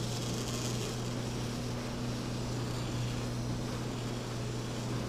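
Fishing boat's engine running steadily under way, a constant low hum, with water rushing in the boat's wake.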